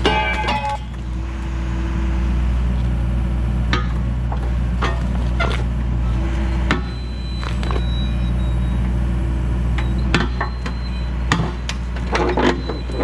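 Diesel engine of the machine carrying a hydraulic rotating metal shear, running steadily under load, with sharp metallic clanks and snaps at irregular intervals as the shear works on steel. The clanks bunch up near the start and again near the end.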